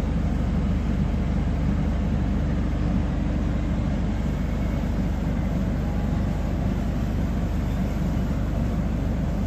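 A shoe-repair machine running steadily with an even motor hum.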